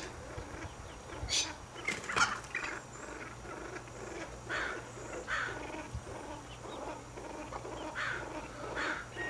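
Two male ring-necked pheasants fighting: faint short bursts of wing-beating and scuffling, about one a second, the loudest about two seconds in.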